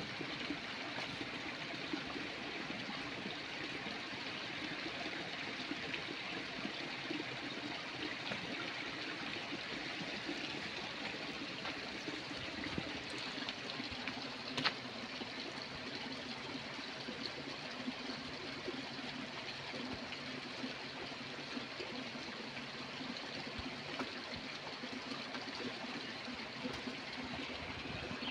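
Steady rushing noise of running water, with a single sharp click about halfway through.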